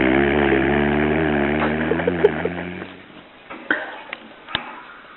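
A sleeping man snoring: one long, low snore lasting about three seconds, then quieter, with a few small clicks.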